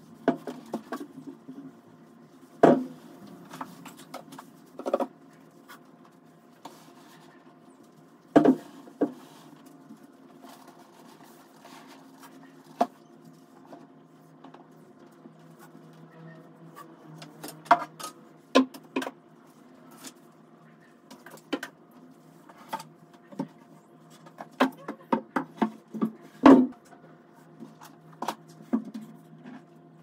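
Household items being picked up, moved and set down on a wooden shelf unit: scattered knocks, taps and clatters, a few of them louder thumps, over a faint steady hum.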